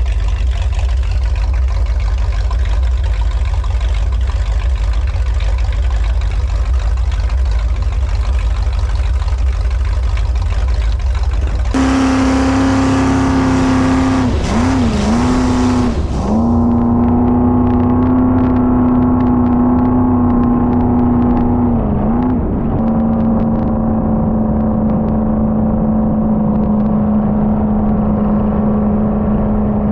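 Jet boat engine running under way. For the first dozen seconds it is mostly a heavy low rush; then a steady engine drone comes through, its pitch dipping briefly three times as the throttle eases and comes back.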